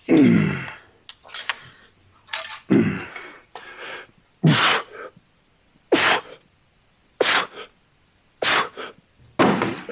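A man's sharp, forceful exhales, about seven of them roughly every second and a half, the first one voiced like a grunt. This is the rhythmic breathing of someone pushing through the reps of a weight-training set.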